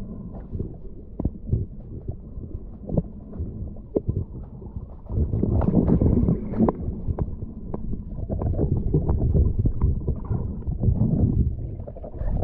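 Underwater noise picked up by a submerged GoPro Hero 8: a muffled low rumble with many small clicks and knocks, louder from about five seconds in.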